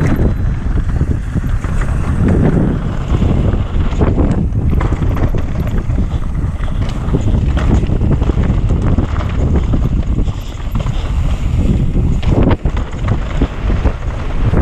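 Wind buffeting the microphone as a mountain bike rides fast downhill on a dirt and gravel trail, with the tyres rolling over the loose surface and short knocks and rattles from the bike over bumps.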